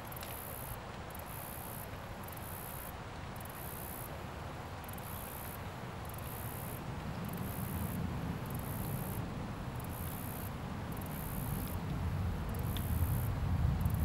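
Bush-cricket singing a high, hissing song in bursts of about half a second to a second, roughly one a second, with short gaps between. A low rumble grows louder over the second half.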